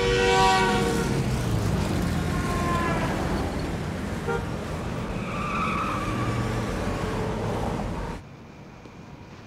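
Heavy highway traffic: engines and tyres, with car horns honking. A long horn blast fades out about a second in, and shorter horn notes follow. About eight seconds in the sound drops suddenly to a faint, steady background.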